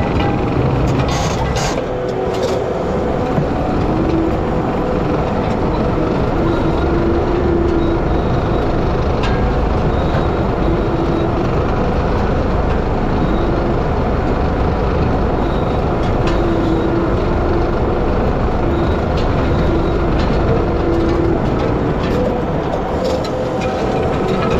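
Skid steer's diesel engine running under steady load while a hydraulic power rake on the front spins its drum through dry pasture soil, a continuous mechanical din with a humming tone that comes and goes.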